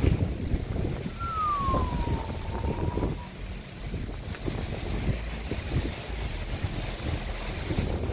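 Hurricane wind gusting against the phone's microphone as an uneven low rumble. About a second in, a thin whistle falls in pitch, then holds level for about two seconds.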